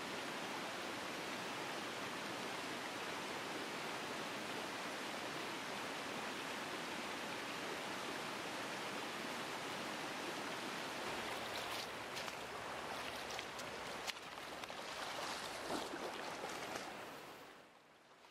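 Rocky mountain trout stream rushing steadily over stones, with a few faint clicks late on; the water sound drops away sharply shortly before the end.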